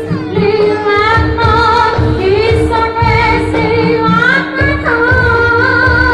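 Music for a Javanese barong performance: a woman singing a wavering, ornamented melody over repeated drum beats and a steady accompaniment.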